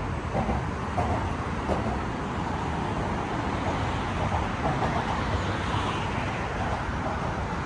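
Steady road traffic noise from cars crossing a bridge roadway: a continuous hum of tyres and engines with no single vehicle standing out.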